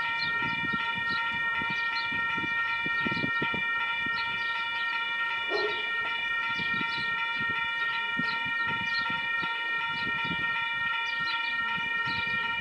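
Level crossing warning bell ringing continuously, with sharp repeated strikes at about two a second over a steady ringing tone, signalling an approaching train while the barrier arms lower.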